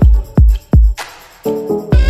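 Background music: an electronic track with a deep kick-drum beat under a melody. The melody drops out briefly about halfway, leaving a hiss, and comes back near the end.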